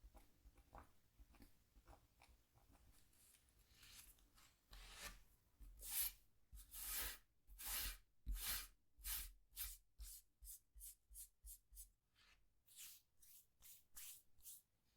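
A scratch tool scraping a scratchboard in a series of short strokes. They are faint at first, grow louder from about five seconds in, and come quickly, about four a second, in a run just past the middle.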